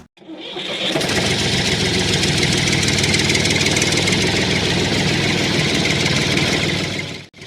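A DIY model tractor's small motor running. It builds up over the first second, holds steady, and cuts off abruptly near the end.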